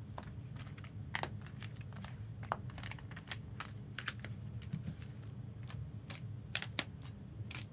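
A run of light, irregular clicks and taps, several a second, over a steady low hum.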